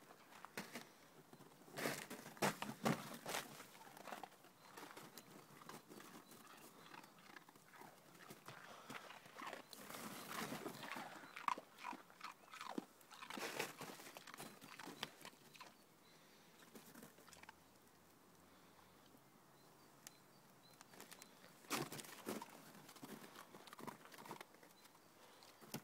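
A dog biting and chewing mouthfuls of snow, crunching in three bouts with quieter stretches between.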